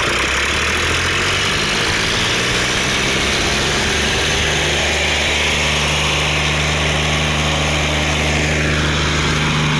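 Swaraj 855 and Swaraj 744 XT three-cylinder diesel tractor engines running hard under load in a tractor tug-of-war, the 855 pouring black smoke. The engine note grows stronger partway through, and a tone drops in pitch near the end.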